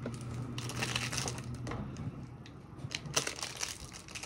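Crinkling of a plastic trading-card pack wrapper and cards being handled, in short irregular rustles over a low steady hum.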